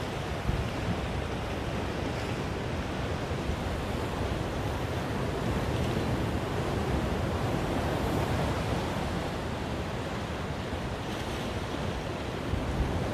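Ocean surf breaking over and washing among black volcanic rocks, a steady rushing wash that swells a little about halfway through.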